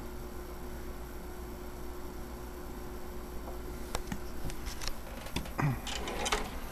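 Power Mac G5 running with a steady fan hum as it boots, a steady tone in it stopping about four seconds in. A few clicks and knocks follow near the end.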